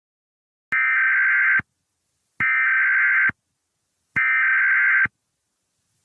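Emergency Alert System SAME header: three identical bursts of harsh, buzzing digital data tones, each just under a second long with about a second of silence between them. This is the coded header that opens an alert broadcast, here recreated with software.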